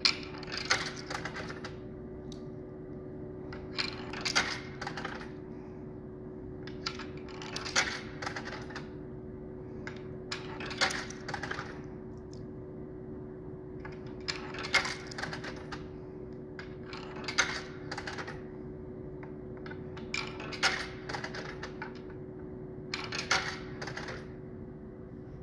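Coins being fed one at a time into a vending machine's coin slot, each clinking and rattling down through the coin mechanism, eight times about three seconds apart. A steady hum from the machine runs underneath.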